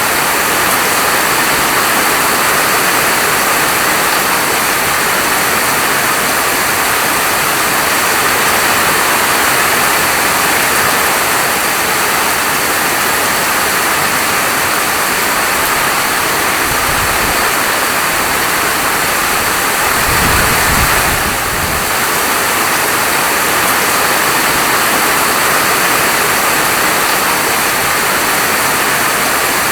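Steady heavy rain falling, a dense even hiss with no let-up; a brief low rumble comes about two-thirds of the way through.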